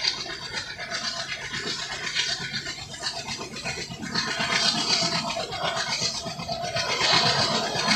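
Running noise of a moving passenger train: dense rattling and clatter of the coach and wheels over the rails, with a low steady hum underneath, growing louder near the end.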